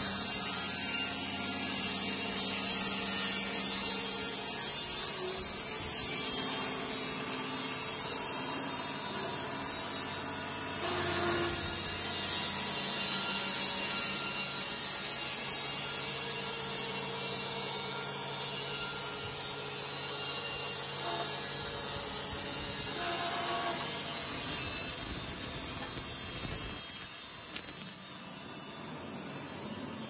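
Electric band sawmill running, its drive motor and band blade giving a steady hum with a hiss over it.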